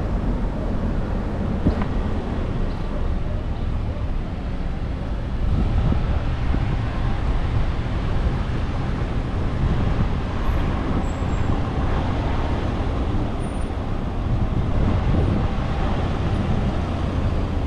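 Motor vehicles running close by on the road, a steady low rumble of engines and road noise.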